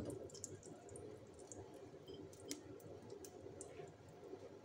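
Faint scattered crackling ticks of an egg omelette cooking in a non-stick pan over a low gas flame, over a steady low hum. A light tap at the very start.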